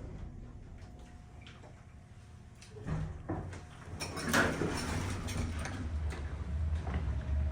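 A door being opened: a short knock about three seconds in, then the door moving open for about a second, with a low steady hum underneath.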